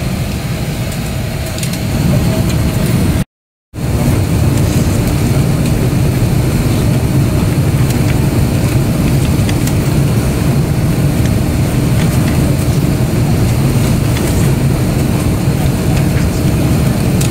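Steady low rush and hum of an airliner cabin parked at the gate, the ventilation noise heard from a window seat, with a faint steady tone through it. The sound drops out completely for about half a second around three and a half seconds in, then returns a little louder.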